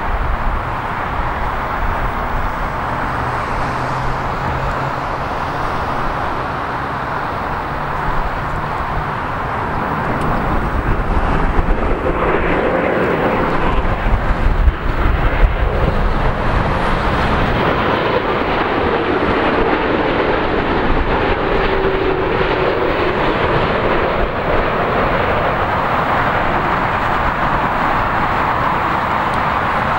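Boeing 787 airliner's jet engines on final approach, a steady rumble and roar that grows louder as it passes low overhead about twelve seconds in, then a tone falling in pitch as it goes by toward the runway.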